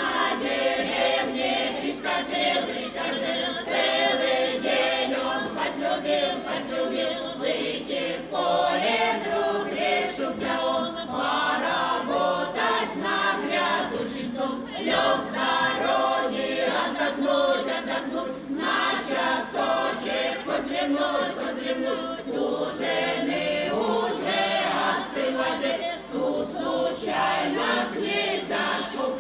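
Vepsian folk choir singing a folk song together.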